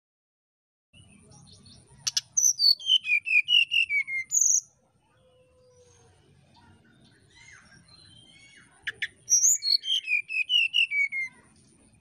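Brown-chested jungle flycatcher singing: two clear whistled phrases, each a quick run of about a dozen notes stepping down in pitch, the second coming about five seconds after the first.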